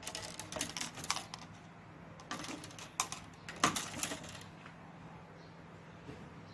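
Light clicking and tapping of small hard objects in two clusters, one in the first second and one from about two to four and a half seconds in, over a faint steady hum.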